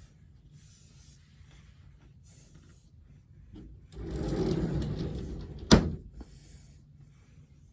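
Household handling noise for about two seconds, ending in one sharp knock, like something being shut or set down hard. Quiet room tone before and after.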